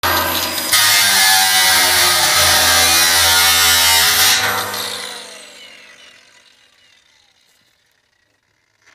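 Angle grinder running and cutting into the steel lid of an oil drum, louder from just under a second in. At about four seconds it is switched off and winds down with a falling whine that fades over the next few seconds.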